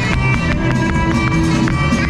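Upbeat norteño polka music with a steady, driving beat, played for a Chihuahua folk dance.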